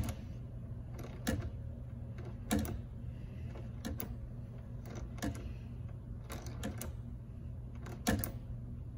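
Hand tap from a Helicoil kit being turned into a blind hole in a plastic blower housing, cutting new threads: a sharp click roughly every second and a half as the tap is worked round, over a steady low hum.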